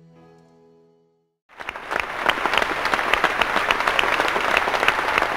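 A held musical chord fades away, then after a moment of silence a theatre audience starts applauding, about a second and a half in, with dense clapping.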